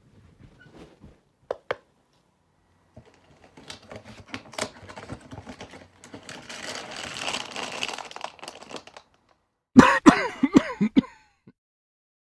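Rustling and small clattering handling noises, then a loud run of coughing lasting about a second near the end.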